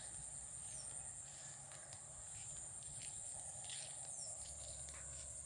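Crickets chirping in a steady, high-pitched evening chorus, with a few short bird chirps over it.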